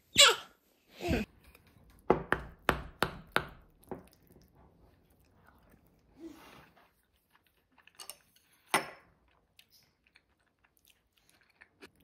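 Tableware and eating noises: a quick run of about five sharp clicks and crunches, then one more knock later, such as a wooden spoon against a ceramic bowl. A short baby's vocal sound comes at the very start.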